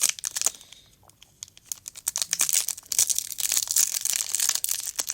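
Foil Pokémon card booster pack wrapper crinkling and tearing as it is opened by hand, with a short lull about a second in before the crinkling picks up again.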